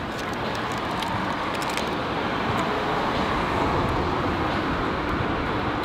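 Steady street traffic noise, a passing vehicle's rush swelling gradually louder.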